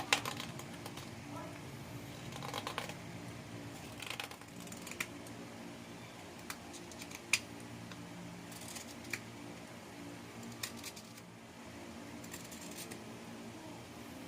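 Hand tool working on wood: short scraping and clicking strokes, single or in small clusters every second or two, over a steady low hum.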